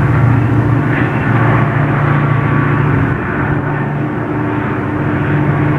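Diesel locomotive of the Chepe passenger train, its engine running with a steady low drone, dipping slightly a little after three seconds.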